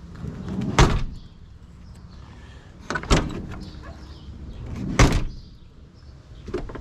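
2000 Chevrolet Silverado 2500 pickup door, its rust-locked lower latch removed, being shut three times about two seconds apart, each a sharp slam.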